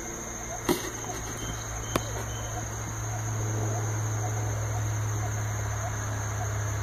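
Homemade laser engraver running while it burns a wooden dowel: a steady hum, with a high steady whine above it. Two sharp clicks come in the first two seconds, and the hum grows a little louder about three seconds in.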